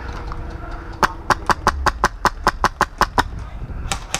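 Airsoft gun firing on full auto, rapid shots at about ten a second: one burst of about two seconds starting a second in, and another beginning near the end.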